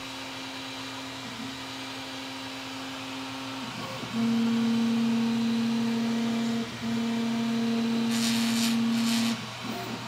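RatRig V-Core 3.1 CoreXY 3D printer running a long bridging move, its stepper motors singing in a steady tone that jumps louder about four seconds in and breaks off briefly twice as the toolhead changes direction, over steady fan hiss. Near the end a loose screw rattles for about a second.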